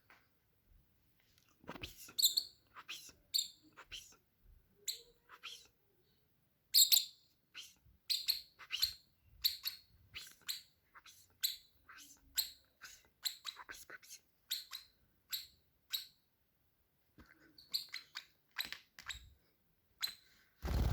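A small bird chirping repeatedly: short, sharp chirps about one or two a second, with a brief pause before they resume near the end.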